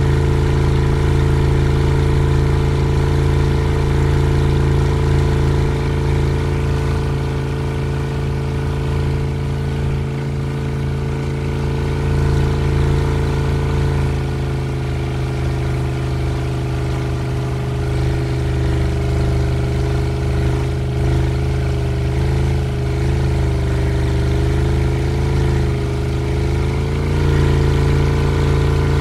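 Boat motor running steadily at constant speed. Its pitch sags slightly about halfway through, wavers a little, and picks back up near the end.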